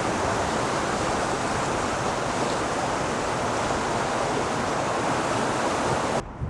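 Steady rushing of fast-flowing river water, loud and even, stopping abruptly near the end.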